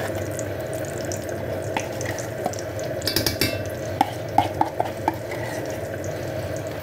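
Metal spoon scraping ghee out of a tin and clinking against the tin and an enamelled cast-iron pan: a run of scraping clicks about three seconds in, then several sharp taps a little later. Under it, a steady faint sizzle of fat melting in the hot pan.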